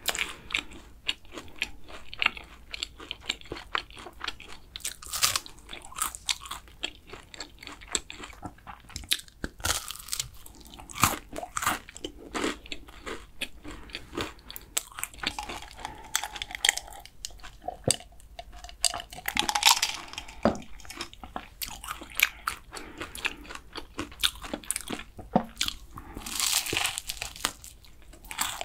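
Close-miked chewing and crunching of flaky kouign-amann pastry: crisp layers crackle through the mouthful, with several louder bites along the way.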